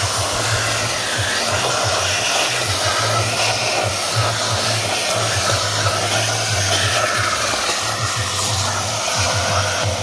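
Bort BSS-1220 construction vacuum cleaner running steadily, its hose nozzle sucking debris off a ribbed rubber car floor mat, with the suction noise wavering as the nozzle is moved about.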